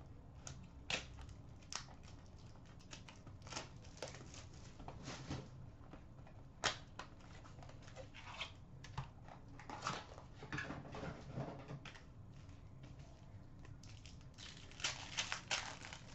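Foil hockey card pack wrappers being torn open and crumpled, with the cards handled: scattered crinkles, rips and light snaps, busiest about ten seconds in and near the end.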